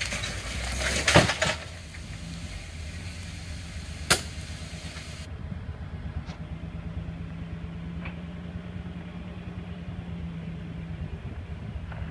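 Jeep engine running low and steady as the Jeep crawls slowly over a rock ledge, with a louder burst of noise in the first second and a half and a single sharp knock about four seconds in.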